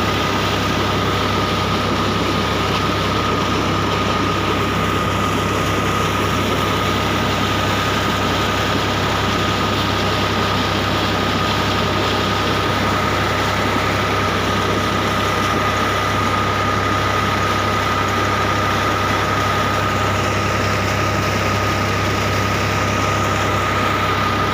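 New Holland tractor engine running steadily, driving a PTO water pump, with a steady high whine over it and water gushing out of the discharge pipe and splashing into a channel.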